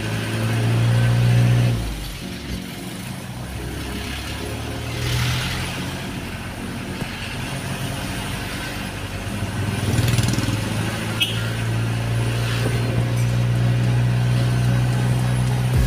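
Toyota Dyna truck's engine heard from inside the cab while driving, a steady low drone that eases off about two seconds in and pulls strongly again about ten seconds in.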